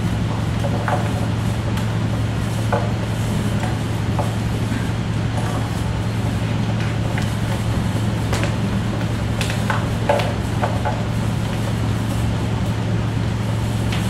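Steady low hum with a few faint, irregularly spaced clicks and knocks over it.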